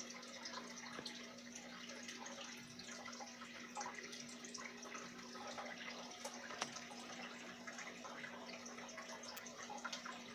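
Fish-tank water trickling and bubbling steadily with small drips and splashes, over a steady low hum.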